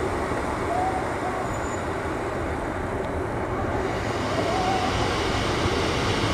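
Class 156 diesel multiple unit approaching the platform: steady underfloor Cummins diesel engine and wheel-on-rail running noise, with two faint short squeals, about a second in and near five seconds.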